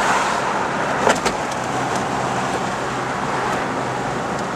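Car driving along a city road, heard from inside the cabin: steady road and engine noise, with two sharp clicks about a second in.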